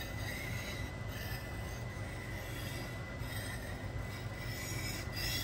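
Steel knife blade being stroked back and forth on a 1000-grit whetstone: a steady rasping scrape.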